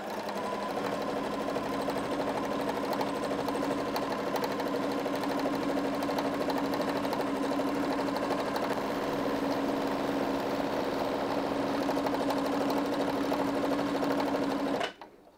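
Pfaff Ambition 630 sewing machine running steadily at speed in free-motion embroidery, with the feed dogs down and the needle stitching rapidly as the hooped fabric is moved by hand. It starts at once and stops suddenly near the end.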